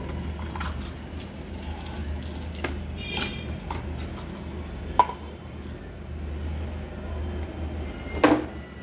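Scattered light clinks and knocks of utensils and ingredients against a stainless-steel mixer-grinder jar as it is loaded, with a sharp clink about five seconds in and a louder ringing clink near the end. A steady low hum runs underneath.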